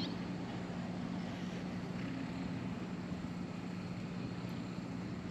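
A steady, low engine hum: one unchanging drone that neither rises nor falls.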